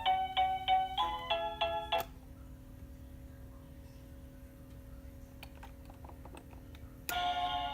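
Electronic chiming melody, a quick run of clean, bell-like notes, plays for about two seconds and stops. A few faint clicks and a low steady tone follow, and the tune starts again near the end.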